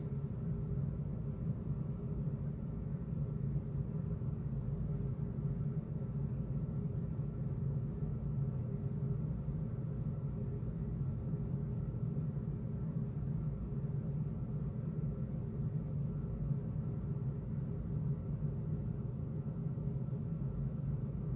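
Steady low hum and rumble of background noise, unchanging throughout, with a few faint steady tones above it.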